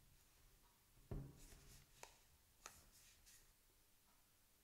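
Near silence, with a few faint handling sounds from gloved hands holding an iPod Classic and a power bank: a dull knock about a second in, then two light clicks.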